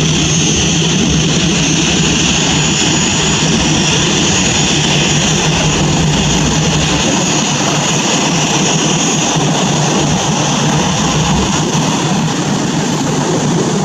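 Boeing 737 jet engines running over a low rumble, with a steady high whine in two tones. The whine fades about nine seconds in.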